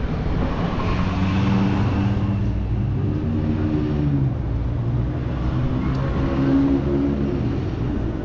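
Street traffic: a car engine running close by over steady city street noise, its hum shifting in pitch a few times.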